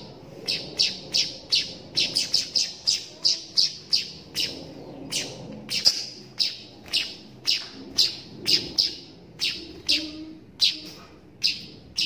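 Young hand-raised weaver bird (manyar) chirping over and over in short, high calls, about two to three a second.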